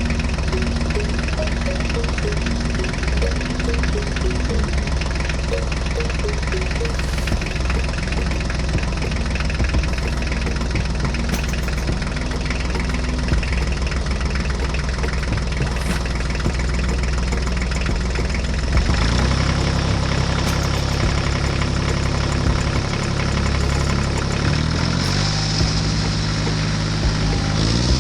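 A motor running steadily with a low hum; its sound changes about two-thirds of the way through, and a tone rises near the end.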